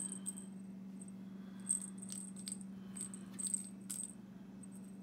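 Small jingle bell tinkling in repeated light clinks, in clusters through the first four seconds. A steady low hum runs underneath.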